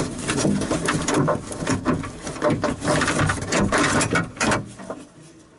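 Irregular clicks, knocks and scraping of a car door lock actuator and latch assembly being worked into place inside the door, dying away near the end.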